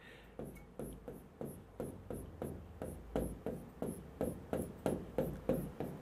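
A pen scratching rapidly back and forth on a whiteboard surface, about three short strokes a second, as boxes are drawn and hatched in.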